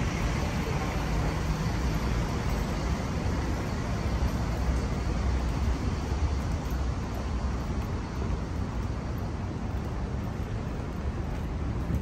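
Steady city street traffic noise: cars running along the road beside the sidewalk, a continuous low hum of engines and tyres.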